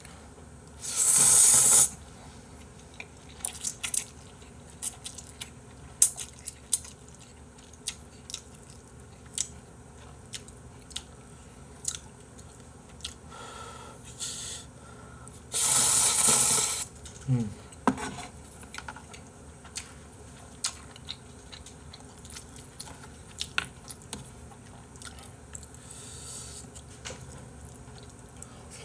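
A man slurping ramen noodles, loud and hissing, twice: about a second in and again just past the middle. In between come chewing and short clicks.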